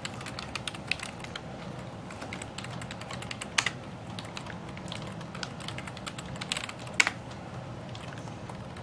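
Typing on a computer keyboard: a run of quick keystrokes entering a login name and password, with two louder clicks about three and a half and seven seconds in.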